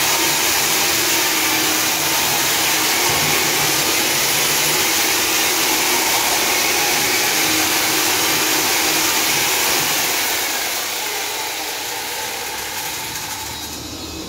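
Electric diamond chain saw cutting into a concrete wall: a loud, steady rush of cutting noise over a constant motor hum. It grows gradually quieter over the last few seconds.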